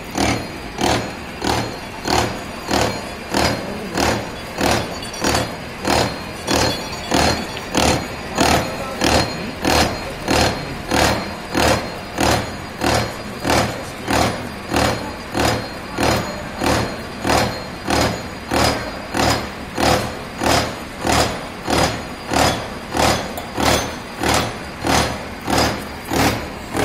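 Horizontal milling machine running, its arbor-mounted milling cutter cutting a steel block, with an even pulse about three times every two seconds over a steady low motor hum.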